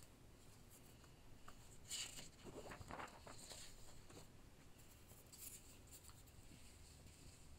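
Near silence: room tone with faint rustling and a few soft handling noises, the most of them about two to three and a half seconds in.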